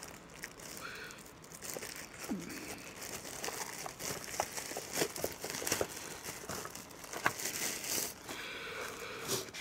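Tissue paper and plastic wrapping crinkling and rustling as hands unwrap packed cables, with scattered light clicks; the rustling gets busier about a third of the way in.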